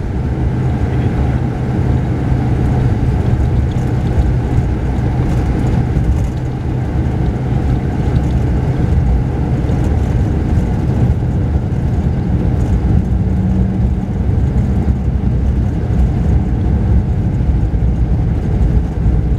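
Mercedes-Benz O-500RSD bus's diesel engine running steadily under way, with road noise, heard from inside the upper deck of the double-decker's cabin.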